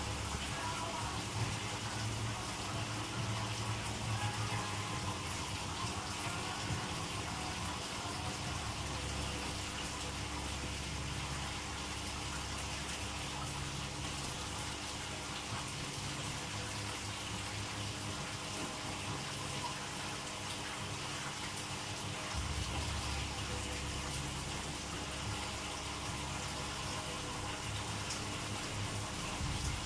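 Aquarium water circulating: a steady rush of running, splashing water with a low hum beneath it.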